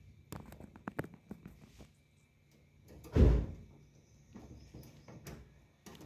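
A rose-ringed parakeet moving about its wire-mesh cage: a quick run of clicks and taps in the first second or so, one loud low thump about three seconds in, then a few lighter taps.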